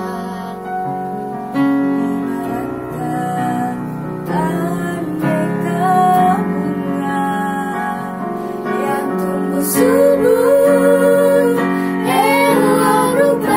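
A small choir of girls singing a song together, accompanied by chords on a Yamaha electronic keyboard with a piano sound. The voices swell and hold long notes with vibrato about ten seconds in.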